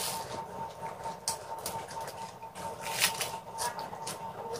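Crisp crunching and chewing of raw pak choy leaves and stems: irregular crunches, a few of them sharper and louder around the middle.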